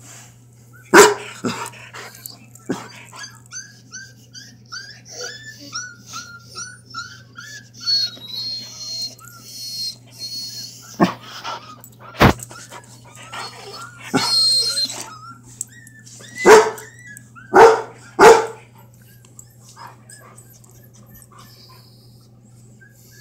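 Puppies whimpering and yipping through a laptop speaker in quick, repeated high cries, while a dog in the room barks loudly: once about a second in, again about midway, then three barks in quick succession.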